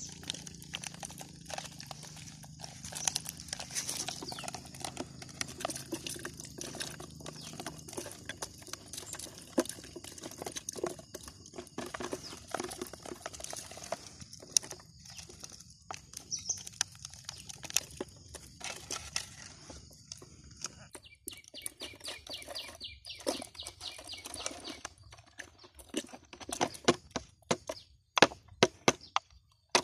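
Plastic-bottle fish trap and plastic jar being handled as the small fish are emptied from one into the other: rattling, clicking and knocking of thin plastic. A run of sharp, loud knocks comes near the end as the tipped bottle is knocked against the jar.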